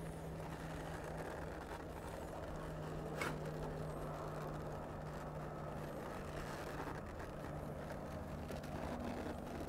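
A steady low motor hum, with one faint click about three seconds in.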